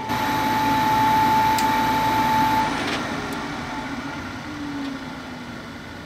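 Draft inducer motor of a 90%+ condensing gas furnace running with a steady whine, then switched off about three seconds in and winding down. It is shutting off because the third trial for ignition has failed and the control board is locking out on flame failure.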